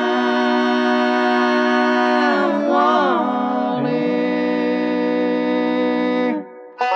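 Bluegrass gospel vocal group singing unaccompanied in close harmony: a long held chord, a shift to a new chord partway through, then a cutoff, with a banjo coming in right at the end.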